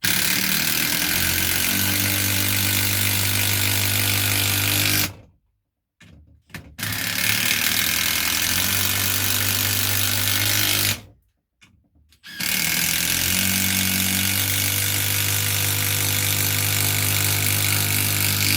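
Cordless brushless 18 V impact driver hammering a 120 mm coach screw into pre-drilled oak, in three long runs with short pauses between them. The driver is working hard and struggles to drive the screw.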